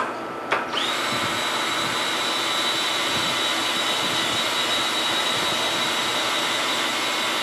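Cordless drill driving the knee crank of a Sharp LMV-50 turret milling machine through a cog adapter, raising the knee. After a click about half a second in, it runs at a steady high whine for about seven seconds, then winds down in pitch as it stops near the end.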